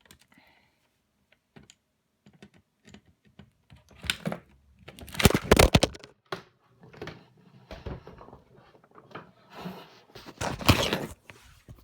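Clicks, taps and scraping of the DVD player's plastic parts being handled and pushed into place, with two louder bursts of rattling about four to six seconds in and again near the end.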